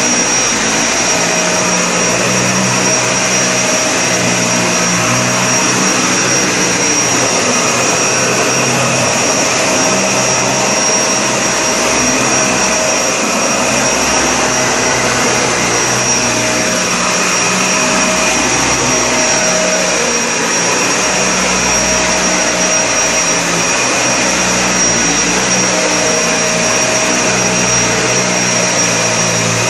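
Vacuum cleaner running steadily on carpet, with a constant high whine over the motor noise; a lower tone fades in and out every few seconds.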